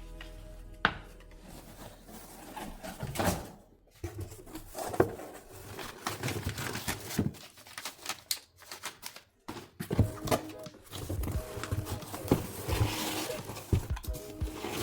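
Wooden boards being handled and unpacked: irregular knocks and clacks of wood against wood and the box, with rustling of packing material between them.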